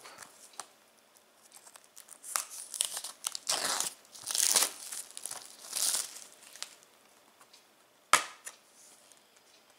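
Plastic shrink-wrap being torn and peeled off a Blu-ray case: crinkling and tearing in several bursts, then a single sharp click about eight seconds in.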